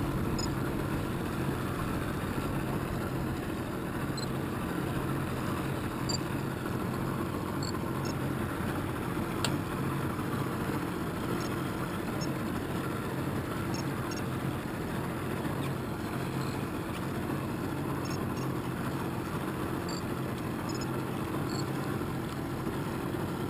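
Outboard motor idling steadily, a constant low hum under a broad hiss.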